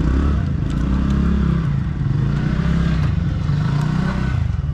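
Motorcycle engine running as the bike rides off, its note rising and falling with the throttle.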